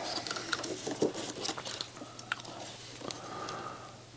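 Irregular small clicks, crackles and scrapes of a circuit board and its components being handled as a replacement electrolytic capacitor is fitted.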